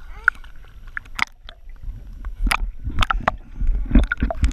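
Pool water splashing and sloshing against a handheld action camera at the surface, with a string of sharp splashes over a low churning rumble that grows heavier in the second half.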